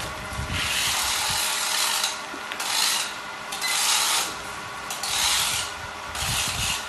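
Wrapping sheet rubbing and rasping against the rolled mattress as it turns on a mattress packing machine's rollers, in repeated bursts about once a second over a faint steady machine hum.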